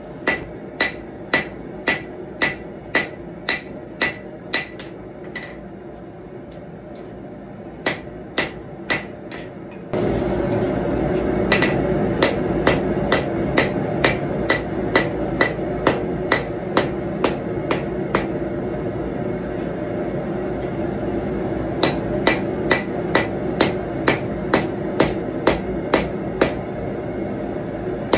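Hand hammer striking a red-hot knife blade on a steel anvil, in steady runs of about two blows a second broken by short pauses. About ten seconds in, a steady background roar comes up abruptly under the blows.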